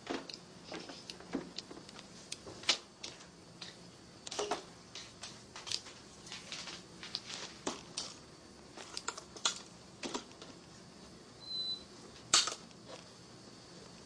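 Scattered small clicks and taps at an irregular pace, the loudest about twelve seconds in, with a brief faint high-pitched tone just before it.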